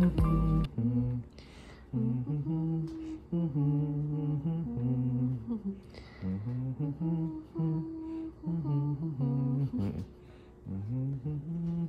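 A man humming a slow tune in a low voice, holding notes and stepping up and down in pitch, with brief pauses between phrases.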